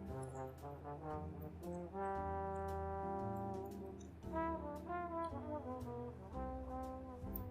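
Background music: a light, bouncy swing tune led by trombone with other brass, playing a run of short and held notes.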